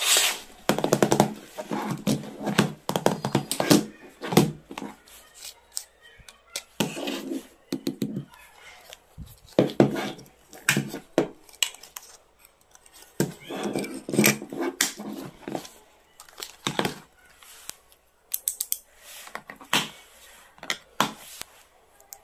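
A hard plastic pencil case being handled: clicks, clacks and rattles of its lids, sliding buttons and compartments, and of pencils and a pen knocking against the plastic, in irregular clusters.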